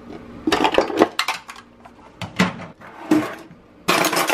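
Cutlery and kitchen utensils clattering in a kitchen drawer as a hand rummages through them: irregular knocks and rattles, with a denser clatter near the end.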